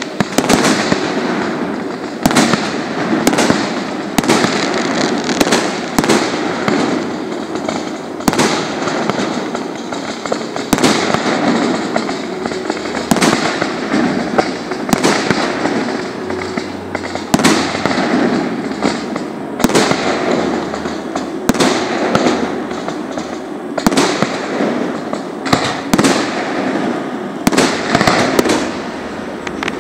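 Fireworks display: aerial shells bursting in sharp bangs, roughly one every one to two seconds, over a steady hiss and crackle.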